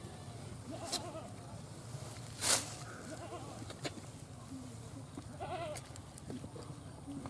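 Hand-milking a cow: short hissing squirts of milk, the loudest about two and a half seconds in. Animal calls bleat a few times between the squirts.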